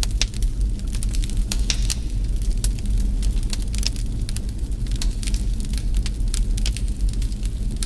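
Wood fire burning in a fireplace, crackling with irregular sharp pops several times a second over a steady low rumble.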